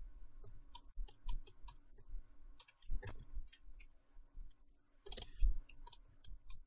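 Computer mouse clicking: a scattered run of short, sharp clicks, with a louder knock about five seconds in.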